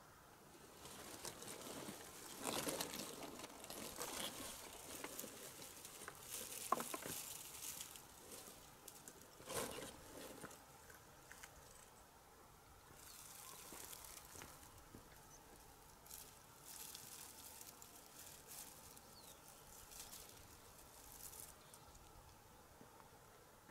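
Dry thistle stalks and a cardboard box rustling and crackling as they are handled in gloved hands, in irregular bursts, with one sharp click about seven seconds in.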